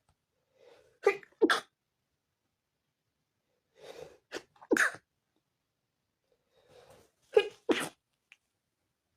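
A person sneezing in three bouts, each a quick in-breath followed by two sharp sneezes in close succession: a sneezing fit set off by dust.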